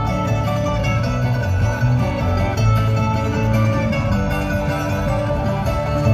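Live bluegrass band playing acoustic guitars, five-string banjo and upright bass together at a steady level.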